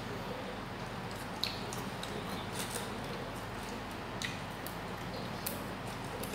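Quiet eating sounds: a few small sharp clicks and snaps as fresh herb leaves are picked from their stems and chewed, over a steady background hum.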